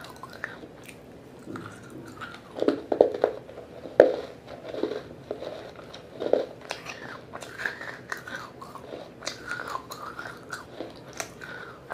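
Biting and chewing of pieces of a wet local clay pot: a run of crunches about two and a half seconds in, one sharp crack about four seconds in that is the loudest, another crunch a little after six seconds, and smaller crunching clicks throughout.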